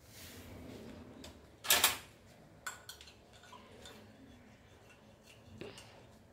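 A spoon stirring sugar into coffee in a ceramic mug: a few light clinks and scrapes, the loudest about two seconds in.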